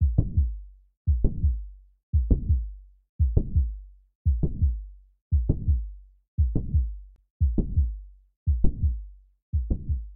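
Recorded heart sounds, as heard through a stethoscope, at a steady slow rate of about one beat a second. Each beat is a sharp sound followed by a low rumbling murmur that fades out before the next beat.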